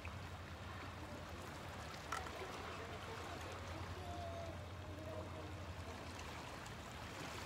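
Calm sea water lapping and trickling among shallow rocks at the shoreline, a steady gentle wash, with one small click about two seconds in.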